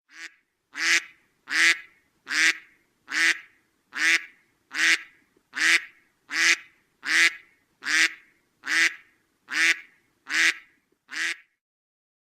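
Mallard duck quacking in a long, even series of about fifteen quacks, a little more than one a second. The quacks stop near the end.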